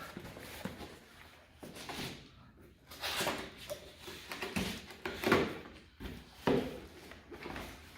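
Chair accessories box being opened and its packed parts handled: a few irregular scrapes, rustles and knocks of packaging.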